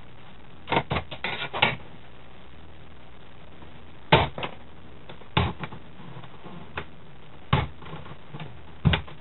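Clicks and knocks of a screwdriver and hands working on an old stereo's chassis while hunting for hidden screws: a quick run of clicks about a second in, then single sharp knocks every second or two.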